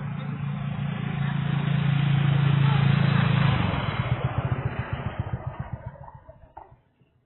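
A motor vehicle passing by: its engine drone builds, is loudest about three seconds in, then breaks into a rapid pulsing as it fades away.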